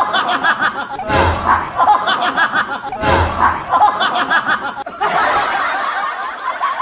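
The same laugh repeats three times about two seconds apart, like a looped laugh sound effect laid over the clip. About five seconds in it gives way to a steadier, noisier sound.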